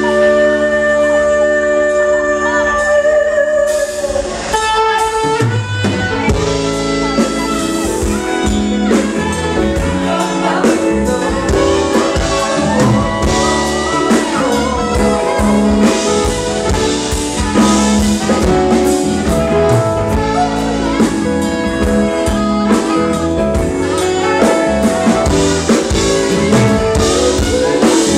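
Live band music with a male singer on microphone: a sustained held chord for the first few seconds, then the drum kit, bass and guitar come in about four seconds in and the band plays on.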